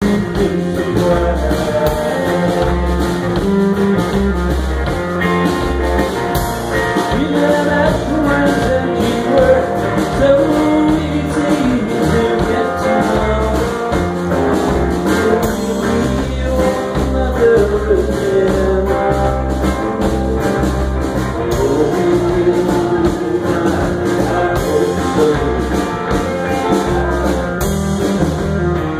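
Live rock band playing loudly: electric guitars and a drum kit, with a lead line bending in pitch over a steady beat.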